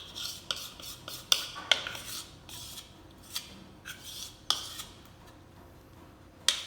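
A spoon scraping and knocking against a mixing bowl while chocolate brownie batter is scraped in and stirred, with irregular sharp clinks among softer scraping.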